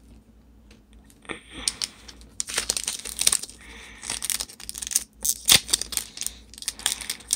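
Foil wrapper of a Pokémon card booster pack crinkling in the hands, starting about a second in and going on in quick, irregular crackles.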